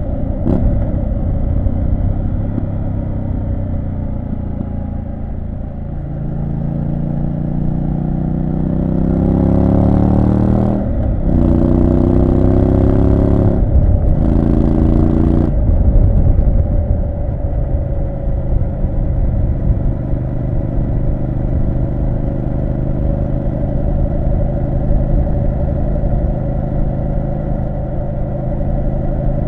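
Triumph Street Scrambler 900's 900 cc parallel-twin engine pulling hard through the gears. The revs climb, drop briefly at two quick gear changes, climb again, then settle into a steady cruise for the rest of the ride.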